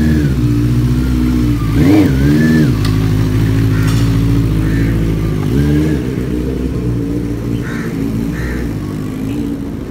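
Benelli 600 GT motorcycle's inline-four engine running, revved up and down about two seconds in and again near six seconds as the bike pulls away. It grows a little quieter as it moves off.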